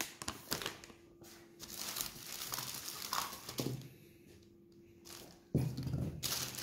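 Thin plastic carrier bags and packaging rustling and crinkling as they are handled. The crinkling dies down for a moment, then grows louder about two-thirds of the way in as a hand rummages in a bag.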